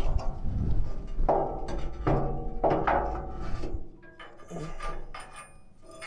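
Steel ripper shank of a box blade being worked by hand in its slot: a series of irregular metal clanks and knocks with a ringing after each one, strongest in the first four seconds, then quieter scraping of steel on steel.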